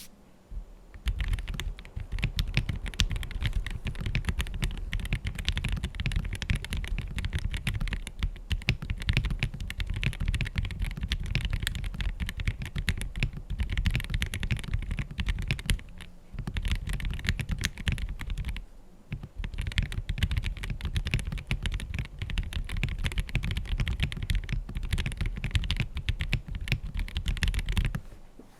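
MW75 gasket-mounted mechanical keyboard, with Gateron Yellow Pro linear switches on a soft polycarbonate plate, being typed on fast and without a break. The key presses run as a dense stream of deep clacks, with short pauses about 16 and 19 seconds in.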